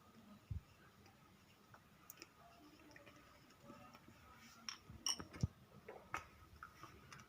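Faint clicks and light taps of a pen on paper while drawing on a folded paper puppet, with a small cluster of ticks about five seconds in.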